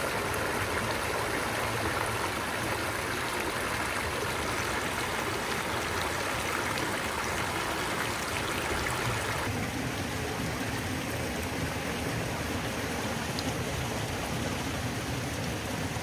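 Water pouring into fish-hatchery rearing tanks from inflow pipes and over a small weir, a steady rushing. A little over halfway through it turns slightly duller and deeper.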